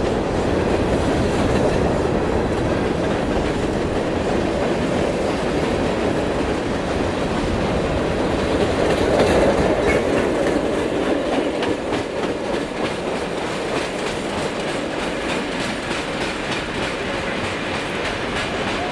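Empty steel hopper cars of a freight train rolling past, their wheels clacking over the rail joints. The sound swells about halfway through, then eases off as the last cars and the caboose draw away.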